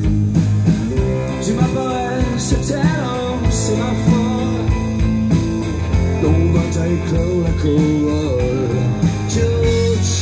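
Live rock band playing: electric guitars, bass and a drum kit in a steady beat, with a melodic line bending above.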